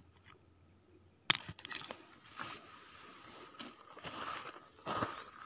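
Footsteps crunching over loose pebbles and gravel, uneven and fairly quiet, after a single sharp click of stone about a second in.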